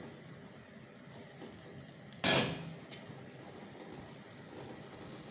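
A single loud clatter of kitchenware about two seconds in, followed by a lighter knock, over a faint steady hiss of cooking.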